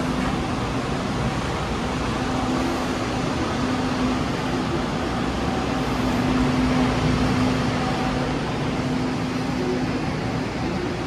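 Steady rumble of a moving passenger train heard from inside the carriage, with a low hum that comes and goes.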